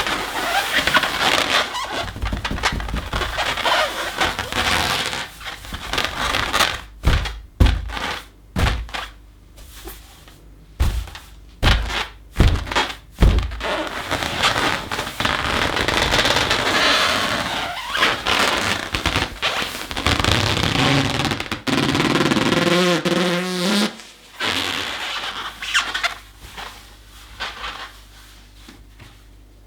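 Inflated yellow balloon being rubbed and squeezed, with a run of dull thumps as it is bumped and patted partway through. Near the end it gives a wavering squeak.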